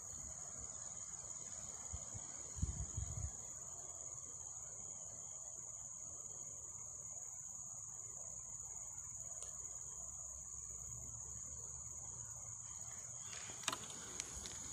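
Steady high-pitched drone of insects. There are a few low thumps about three seconds in, and clicks and rubbing near the end as a hand handles the camera.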